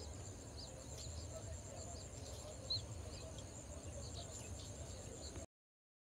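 Faint open-field ambience: scattered short bird chirps over a steady high insect drone and a low steady background noise. It cuts off to total silence about five and a half seconds in.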